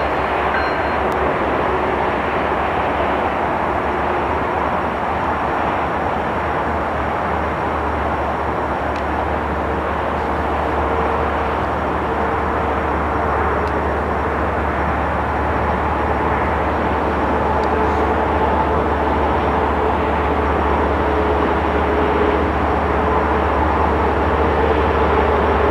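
GE ES44 diesel-electric freight locomotives with GEVO V12 engines working, a steady rumble with a faint engine drone, growing slightly louder near the end as the lead units approach.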